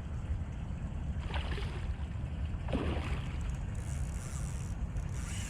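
Steady low rumble of wind on the microphone over open water, with a couple of faint brief noises about a second and a half and three seconds in, and a high hiss near the end.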